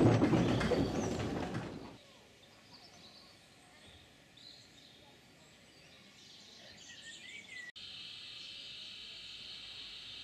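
Rumble and clatter of a railway brake van rolling along the track, ending abruptly about two seconds in. Quiet outdoor ambience with small birds chirping follows, and over the last few seconds a steady high-pitched tone.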